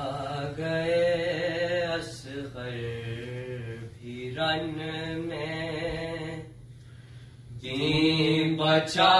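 Young male reciters chanting an Urdu salam without instruments, in slow phrases of long drawn-out notes. There is a short break about six and a half seconds in, and the next phrase comes in louder.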